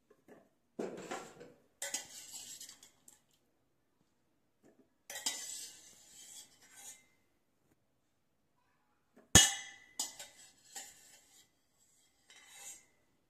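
A steel spoon scrapes and clinks against a stainless steel pot and plate as steamed potato cubes are scooped out. It comes in several bouts of clatter, with one sharp, loud clank about nine seconds in.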